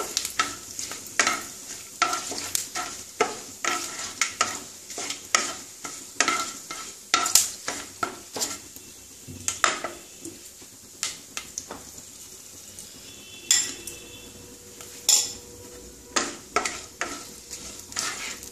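Wooden spatula scraping and knocking around a nonstick wok in repeated strokes while whole spices and bay leaves sizzle in ghee and oil over a low gas flame. The stirring stops for a few seconds about two-thirds of the way through.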